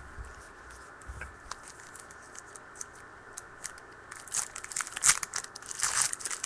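Foil trading-card pack wrapper being torn open and crinkled, quiet faint clicks at first, then a dense run of crackling and tearing from about four seconds in.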